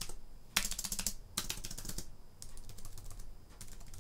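Keys of a Matias aluminum wireless keyboard being pressed in quick succession, giving several short runs of rapid clicking a few tenths of a second apart.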